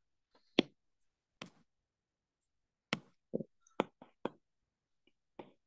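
Light taps and clicks of a stylus on a tablet's glass screen, about eight of them, irregularly spaced.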